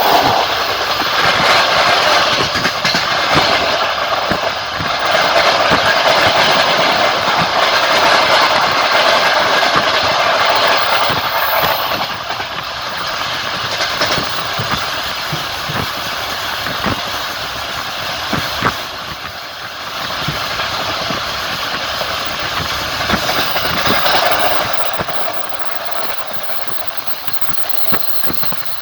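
Passenger train wheels rolling along the rails, heard from inside a carriage: a steady running noise that swells and eases, with occasional sharp clicks of the wheels over rail joints.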